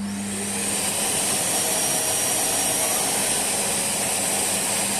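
Bosch Aqua Wash & Clean Series 4 wet-and-dry vacuum cleaner (2000 W) switched on: the motor spins up with a rising whine over the first second, then runs steadily with a high-pitched whine over a loud rush of air.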